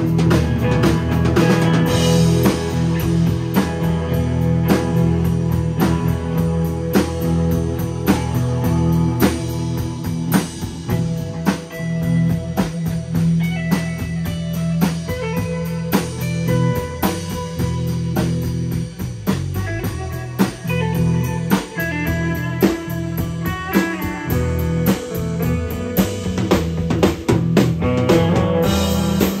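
Live instrumental rock band playing: an amplified electric guitar carries the melody over a drum kit with steady cymbal and drum strikes and sustained low notes underneath.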